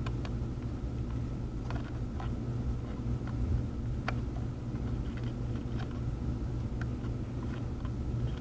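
Steady low hum of running workbench equipment, with scattered faint ticks of small metal tools touching the circuit board during hand soldering.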